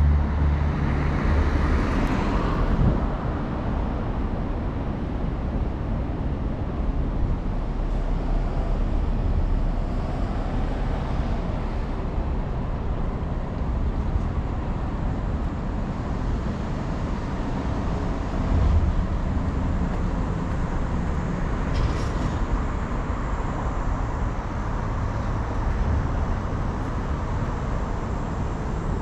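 Road traffic along a city street: a steady rumble of cars going by, with one vehicle passing close about two seconds in. A single short click sounds about twenty-two seconds in.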